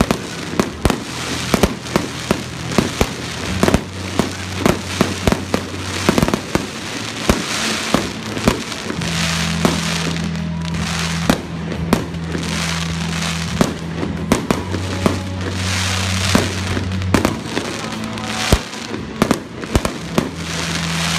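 Aerial fireworks bursting in rapid volleys of sharp bangs and crackle, with music playing underneath, its low held notes changing every few seconds. The bangs thin out in the middle and come thick again near the end.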